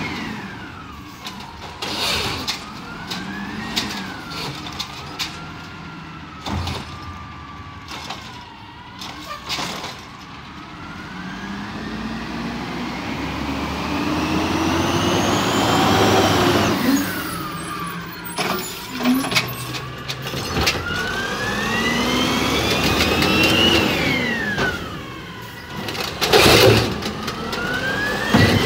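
Peterbilt 320 garbage truck with an Amrep automated side-loader arm at work. The engine revs up and down, and a hydraulic whine rises and falls in pitch as the arm lifts, dumps and lowers a cart. Knocks and bangs come from the cart and arm, with the engine swelling as the truck pulls up to the next stop and the loudest bangs near the end.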